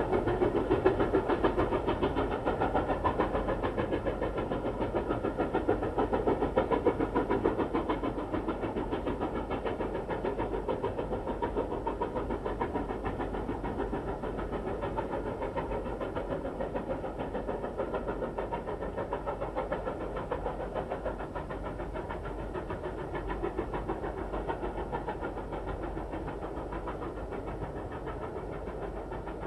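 A continuous engine-like mechanical running sound with a fast, fine pulse, slowly getting quieter.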